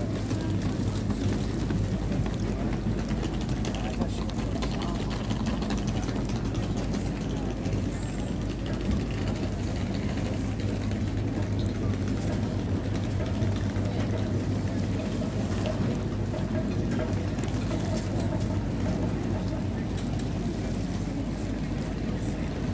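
Busy street ambience: passers-by talking, over a steady low hum.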